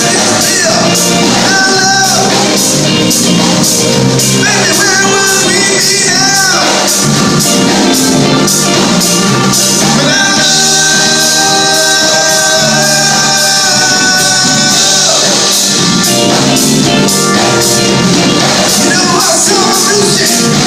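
A live rock band playing with drums and singing, loud and steady, with one long held note about halfway through.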